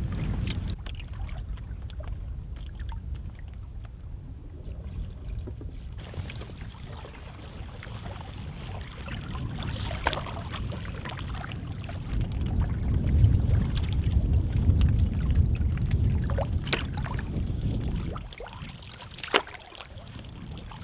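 Paddling Bergans Ally folding canoes on a lake: water lapping and swishing along the hulls, with a few light knocks or splashes. A low wind rumble on the microphone swells in the middle and drops away near the end.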